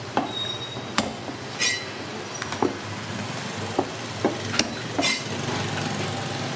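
Cleaver knocking against a thick round wooden chopping block while a snake is cut up: about eight sharp, irregularly spaced strikes, over a low steady hum of street traffic.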